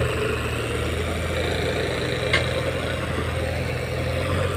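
Diesel tractor engine running steadily while hauling a heavy trolley load of sugarcane. One sharp click sounds a little past halfway through.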